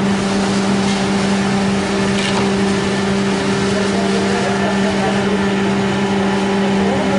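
Industrial machine running steadily, a constant motor hum over mechanical noise.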